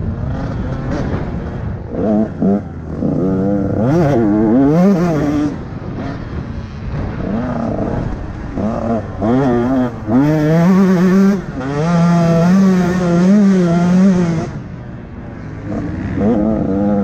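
Motocross bike engine running hard under the rider, its pitch rising and falling again and again as the throttle is worked and gears are changed through jumps and turns. It is held high for a few seconds past the middle and eases off briefly near the end.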